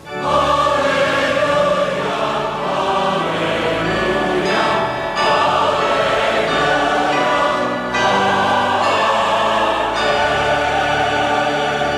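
A choir singing loud, held chords that change every second or two.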